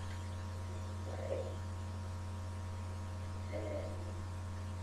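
Steady electrical mains hum on the recording, low and unchanging, with two brief faint murmurs, one about a second in and one later.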